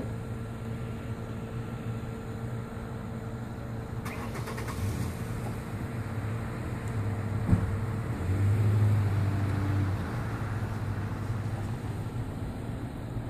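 Vehicle engine idling with a steady low hum, a short rattle of clicks about four seconds in and a sharp knock about seven and a half seconds in, after which the low hum swells louder for a couple of seconds.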